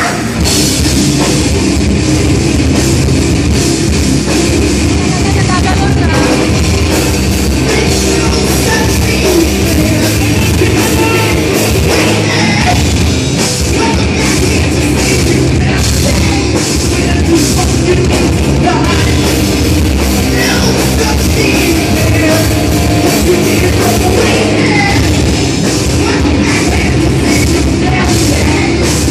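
A live heavy rock band playing loud: electric guitars, bass and a drum kit, with a vocalist singing into a microphone.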